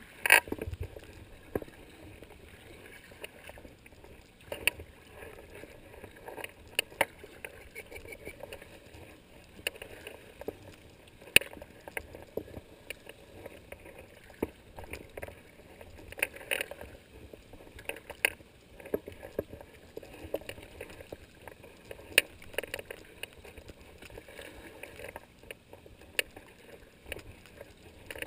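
Kayak paddling: steady paddle strokes with water splashing and gurgling off the blades, punctuated every second or two by sharp knocks and clicks from the metal paddle shaft and the hull, the loudest knock just after the start.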